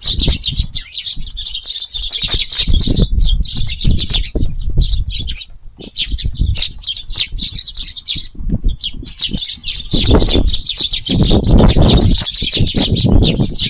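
A flock of Eurasian tree sparrows chirping rapidly and almost without pause, with a few short lulls. A low rumble runs underneath, heaviest from about ten seconds in.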